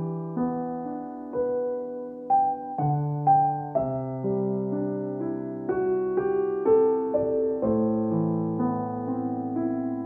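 Calm background piano music of slow, sustained notes and chords that overlap as they ring on.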